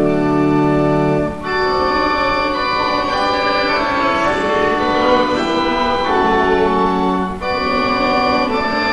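Organ playing a psalm tune in slow, held chords, with short breaks between phrases about a second and a half in and again near the end.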